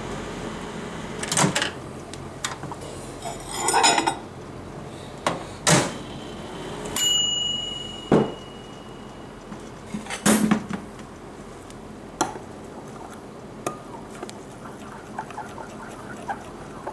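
Knocks and clatter of a microwave and a glass measuring cup being handled, with one ringing ding about seven seconds in, then light clinks of a metal spoon stirring melted soft plastic in the glass cup.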